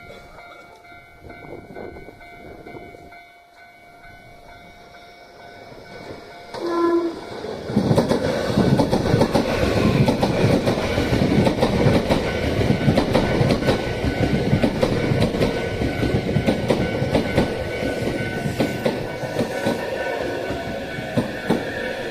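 A Hankyu electric train gives a short horn blast about seven seconds in, then passes close by with a loud, rhythmic clatter of wheels over the rail joints that slowly fades.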